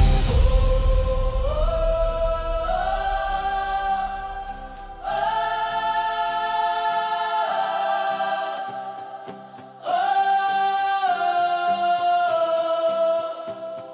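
A choir sings long, sustained wordless chords in three swelling phrases of about four to five seconds each, as the introduction to a gospel hymn. A low backing fades away in the first half.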